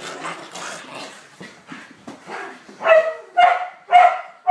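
A dog barking excitedly: four loud barks about half a second apart in the second half, after a stretch of quieter noise.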